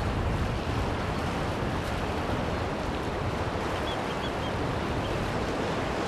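Sea surf breaking and washing over rocky shore ledges, a steady rushing of water with a deep rumble.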